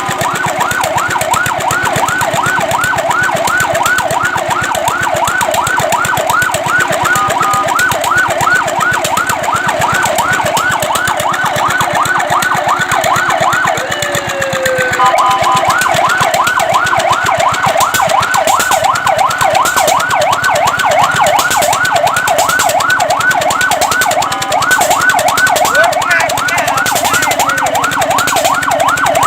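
Fire truck siren on a rapid yelp: quick rising sweeps, about three a second, with a brief break and change in the pattern about halfway through.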